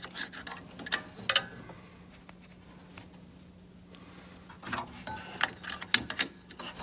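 Small clicks and scrapes of a CR2032 coin-cell battery being handled and fitted into a motherboard's battery holder. They come in two clusters with a quieter gap of about three seconds between them, over a faint steady low hum.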